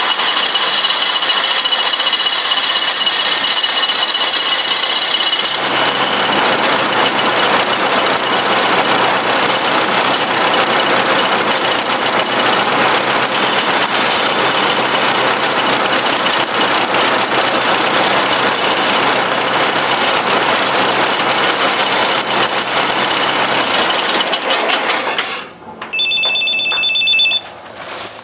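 A 1953 Ford Jubilee tractor's four-cylinder engine running after being started with a freshly rebuilt starter. Its sound changes about six seconds in and stops suddenly about 25 seconds in, followed by a brief two-tone electronic beep.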